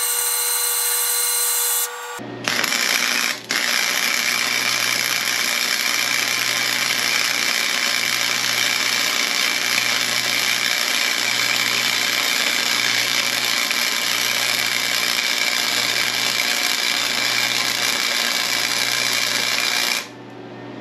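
Self-shielded flux-core arc welding with Lincoln Innershield .030 wire on a Harbor Freight 125 flux-core welder: a steady crackling hiss with a low buzz under it. A short whine comes before the arc strikes about two seconds in, the arc breaks briefly a second later, then it runs without a break until it stops near the end.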